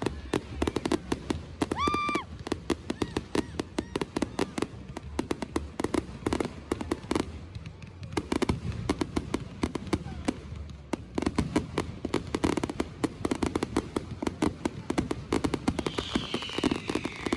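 Fireworks crackling: a dense, continuous run of rapid small pops. There is a short high pitched tone about two seconds in, and a falling whistle-like tone near the end.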